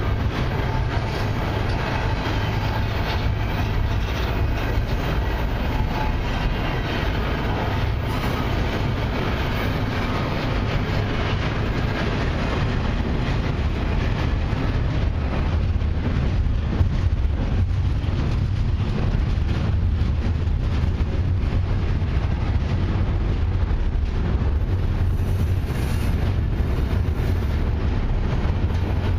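Double-stack intermodal well cars of a long freight train rolling slowly past: a steady low rumble with many small clicks from the wheels.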